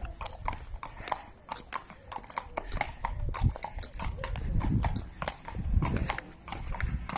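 Horse's hooves clip-clopping at a walk on brick paving, an even run of sharp clops. A low rumble swells under them through the middle.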